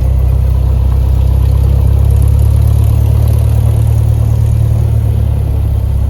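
Cessna 172's piston engine and propeller, a loud, steady drone heard inside the cockpit.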